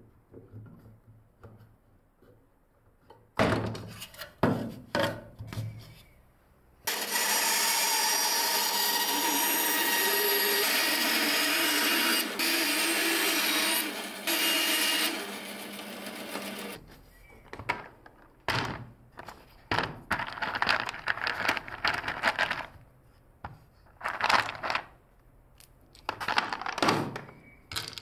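Clamps and wooden parts knocking and clicking as they are handled, then a band saw running steadily for about ten seconds, cutting off suddenly. After it, small wooden pieces and dowels clatter with irregular knocks on the bench.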